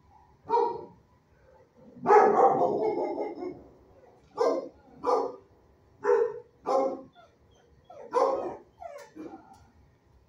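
A dog barking in a shelter kennel block: one long bark about two seconds in, then short barks coming mostly in pairs.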